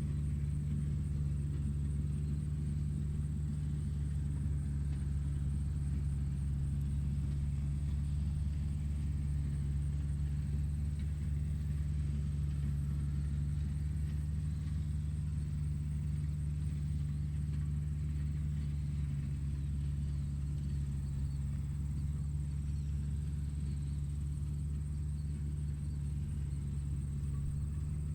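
Steady low engine rumble of construction-vehicle machinery running without change, with a faint thin high whine above it.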